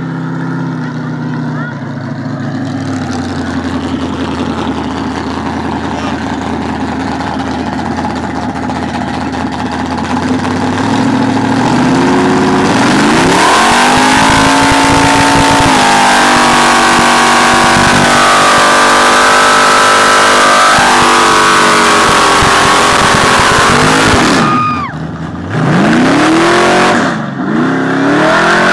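A vintage panel truck's engine revving through a burnout. It runs moderately at first, then about twelve seconds in the revs climb and hold high for about ten seconds with the hiss of spinning tyres. The revs then drop and come back in a couple of short blips and rises near the end.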